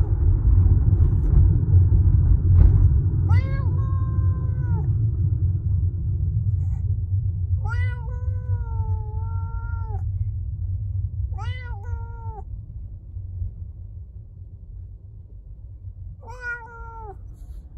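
A black-and-white cat meowing four times from inside a pet carrier. The meows are long and drawn out, the second the longest at about two seconds. Under them runs the low rumble of the car, fading steadily.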